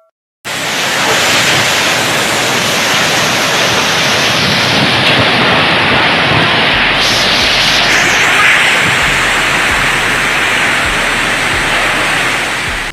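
Heavy rain and strong wind: a loud, steady rushing noise that starts abruptly about half a second in.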